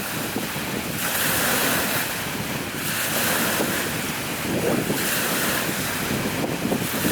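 Strong wind rumbling on the microphone, with small lake waves washing on the shore in a rushing hiss that swells and fades three times.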